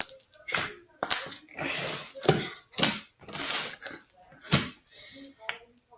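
Hands kneading and folding a large mass of homemade slime with small foam beads in it, giving a series of wet squelches and slaps, roughly one every half second.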